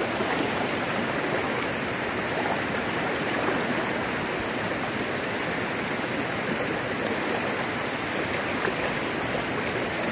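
River water running fast over rocks in shallow rapids: a steady, even rush of flowing water.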